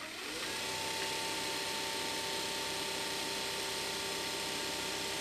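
A 120-volt electric motor starting on the AC output of a 12-volt DC dynamotor. It rises in pitch and loudness over about the first second, then settles into a steady hum.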